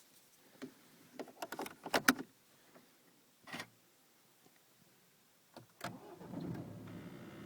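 Several sharp clicks and knocks, the loudest about two seconds in. Then, about six seconds in, the BMW 318d's N47 two-litre four-cylinder diesel cranks, starts and settles into a steady idle.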